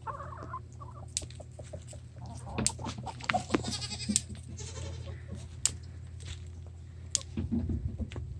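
Barnyard sounds from goats and chickens: a short call right at the start, then scattered clucks, short calls and light knocks over a low steady rumble.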